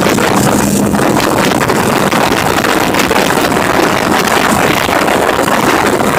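Cruiser motorcycle riding at highway speed: steady engine and road noise under heavy wind rush on the microphone.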